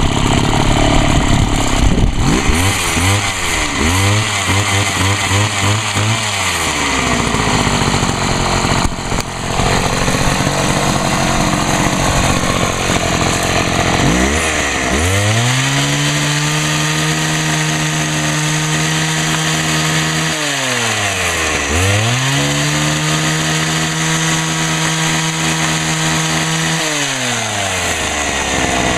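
Two-stroke engine of a Homelite HT-21 hedge trimmer with a freshly rebuilt carburetor, running after a restart. It is revved up to high speed and held for several seconds three times, falling back to idle in between, and starts a fourth rev near the end.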